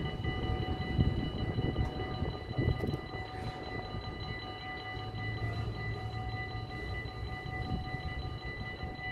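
Diesel shunting locomotive 636, an English Electric-built NS 600-class shunter, rumbling as it moves off slowly along the track, with a couple of knocks in the first few seconds. A steady ringing warning tone from the closed level crossing sounds throughout.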